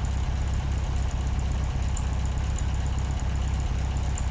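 Steady low background rumble with a faint high-pitched whine above it. Nothing starts or stops.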